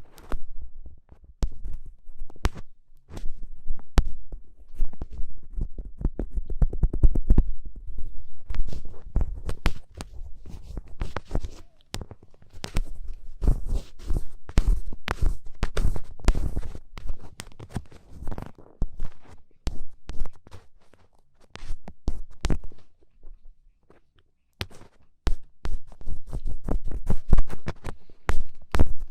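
Ear-pick ASMR scratching: an ear pick scraping firmly against an ear microphone, a dense run of crackly scratches and clicks with a heavy low rumble. It pauses briefly twice, the second time near the end, before resuming.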